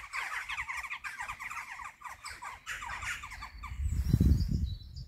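A colony of cliff-nesting birds calling from holes in a limestone rock face: a dense run of short, falling chattering calls that fades out after about three seconds. Low rumbling noise on the microphone then takes over and is the loudest sound near the end.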